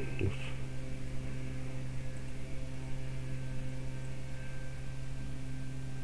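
Steady low electrical mains hum with fainter, evenly spaced overtones above it.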